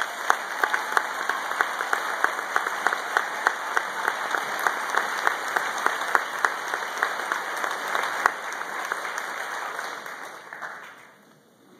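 Audience applauding, with one pair of hands clapping loudly close by at about three claps a second. The applause fades out near the end.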